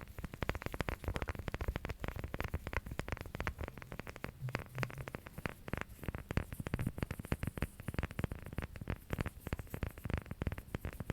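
Fast, continuous tapping and scratching of fingers or nails on an object, a dense run of many small clicks a second.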